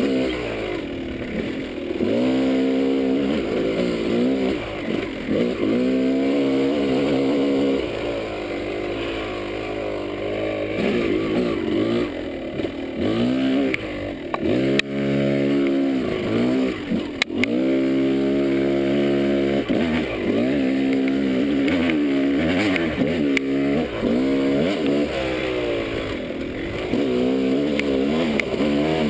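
Yamaha dirt bike engine revving up and falling back again and again through the gears while riding a rough trail. There is a single sharp knock about seventeen seconds in.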